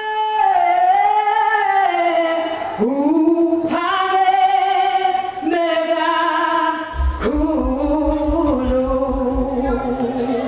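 A woman singing a gospel song solo into a microphone, amplified, in slow phrases of long held notes.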